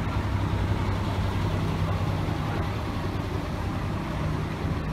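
Engine of a Shizutetsu Justline route bus running as the bus drives past close by and pulls away: a steady low engine hum over a background of traffic noise.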